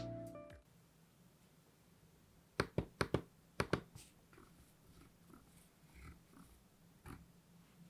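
Mechanical keyboard being handled: a quick run of about seven sharp clicks a little over two seconds in, then faint small rustles.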